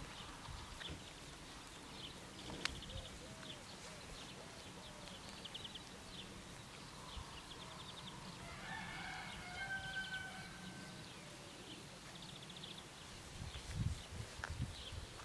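A rooster crowing once, about nine seconds in, against faint repeated chirping of small birds, with a few low rumbling thumps near the end.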